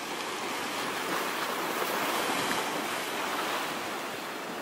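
Ocean surf washing and breaking against a rocky shoreline ledge: a steady rushing hiss that swells a little about a second in and eases toward the end.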